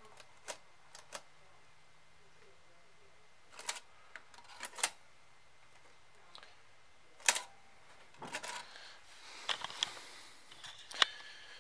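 Irregular sharp clicks and light knocks of plastic parts being handled in a Bose multi-CD changer's disc-tray mechanism, with a brief scraping slide near the end.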